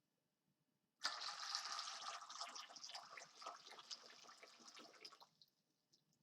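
Water sloshing and splashing, starting suddenly about a second in and tapering off over about four seconds before it stops.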